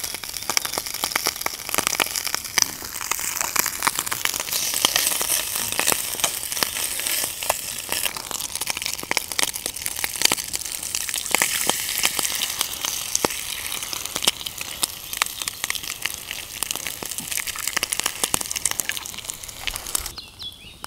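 A small pan of food frying over a wood campfire: continuous sizzling and spitting, with many sharp crackles, which stops abruptly near the end.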